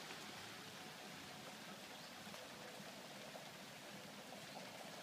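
Faint, steady hiss of outdoor shoreline ambience, with a faint hum coming and going.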